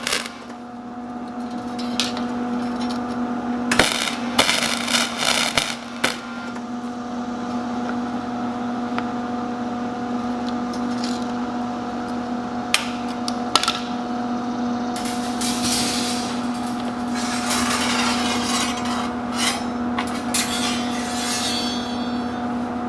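Metal clanks and strikes on steel wire tomato cages being hammered and worked during weld repairs, with a cluster of strikes about four to six seconds in and a couple more later, over a steady electrical hum. Near the end there is a denser crackling noise.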